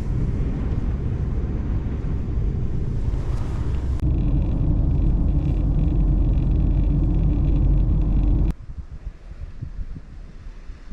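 Truck driving: a steady low engine and road rumble, in two clips cut together about four seconds in. At about eight and a half seconds it cuts to a much quieter, uneven sound.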